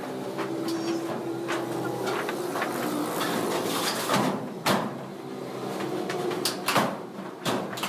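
Workshop noise: a steady machine hum with several sharp knocks, the loudest about four seconds in and again near the end.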